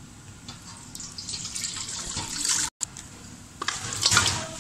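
Mutton broth and boiled meat pieces being poured from a pressure cooker into a perforated stainless-steel colander, the liquid splashing and draining through. The pouring comes in two spells: the first builds up and cuts off suddenly, and a second, louder burst comes near the end.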